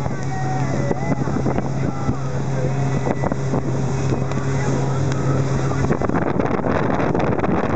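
Twin outboard motors driving a North River boat at cruising speed: a steady low drone over the rush of wind and water. The drone drops away about six seconds in, leaving the wind and water noise.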